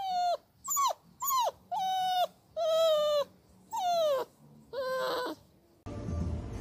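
French bulldog puppy whining: seven high, drawn-out whines, each a fraction of a second long, most sliding down in pitch and some held level, with short silent gaps between them. Near the end the whining stops and a low, rumbling background noise cuts in.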